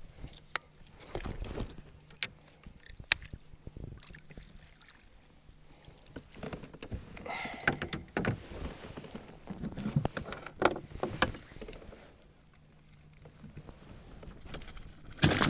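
Knocks, clicks and water sloshing in a kayak as a gar is landed in a net and handled to free the hook, with a louder clatter near the end.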